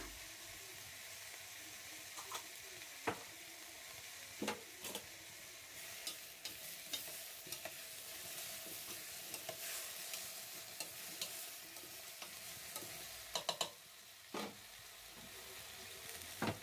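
A spoon stirring chunks of potato, onion and tomato paste in a pressure-cooker pot, with scattered scrapes and knocks against the pot. Under them runs a faint steady sizzle of the vegetables frying in the oil left from browning the chicken.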